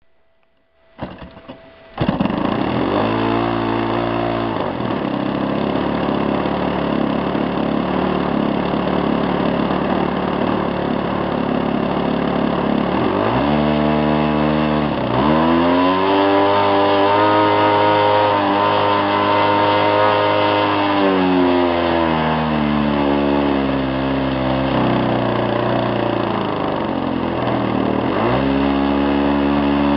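ZDZ 40 single-cylinder two-stroke petrol engine on a model plane starting about two seconds in, then running and being throttled up and down. It revs briefly soon after catching, runs lower and steady, climbs to high revs for several seconds in the middle, eases down gradually and rises again near the end.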